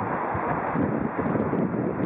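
Wind buffeting the microphone: a steady rushing noise with gusty low swells.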